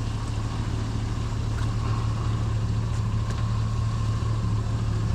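A vehicle engine running steadily with a constant low hum, with a few faint clicks over it.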